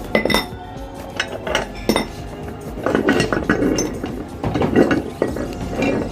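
Glass marbles clinking and rattling against the metal of a meat grinder, in irregular clusters of sharp clicks that come thickest in the middle.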